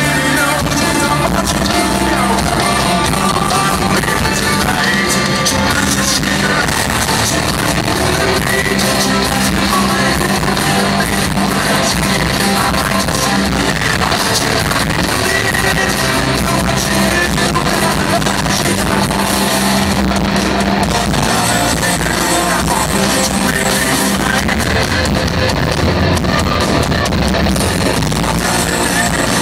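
Live rock band in concert: loud distorted guitars, bass and drums with a male lead singer, echoing in a large hall and recorded on a handheld camera from the crowd.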